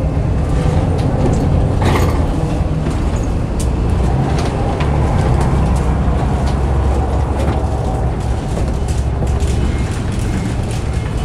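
Scania L94UA articulated bus's diesel engine idling while the bus stands still, a steady low rumble.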